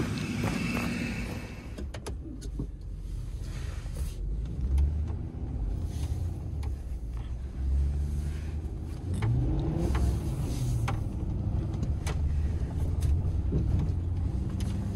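Truck engine running and tyre noise heard from inside the cab while driving slowly on a snowy road. The engine pitch rises and falls once about two-thirds of the way through as it speeds up.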